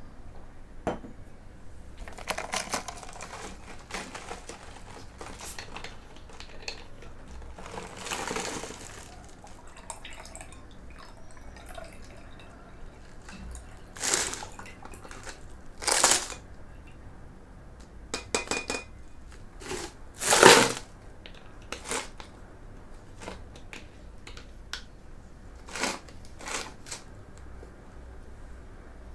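Mikit M65 mechanical keyboard with Box White switches being typed on: scattered keystrokes and short runs of clacks, with a few heavier strokes, the loudest about two-thirds of the way through.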